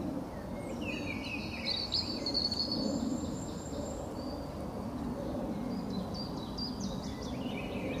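Wild birds singing and calling: short high chirps, trills and sliding notes, over a steady low background noise.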